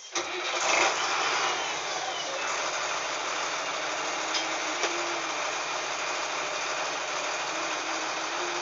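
LiAZ-5256.25 city bus diesel engine starting: it catches suddenly, runs loudest for about the first second and a half, then settles into a steady idle. Two short clicks come about four and a half and five seconds in.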